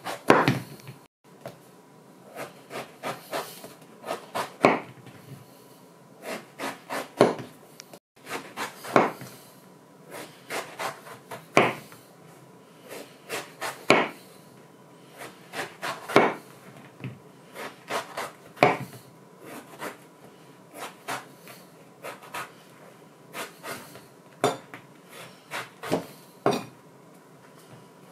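Hand-forged knife made from coil-spring steel chopping, a sharp knock with each blow, at an uneven pace of one or two strikes a second, some coming in quick pairs.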